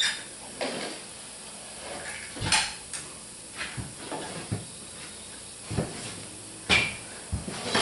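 Irregular metallic clicks and knocks, roughly one a second, from a hand-held caulk gun being worked and handled while caulking.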